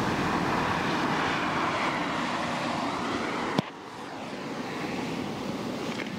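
Mercedes-Benz SLK200 Kompressor with its 2-litre supercharged four-cylinder, heard as engine and tyre noise that swells as the car approaches. About three and a half seconds in the sound cuts abruptly to a quieter run as the car drives away.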